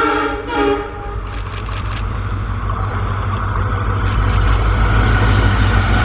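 WDP 4B diesel locomotive's air horn finishing a long blast, then sounding one more short blast. The train's rumble and the low drone of its EMD V16 two-stroke engine follow, growing louder as it comes through at speed.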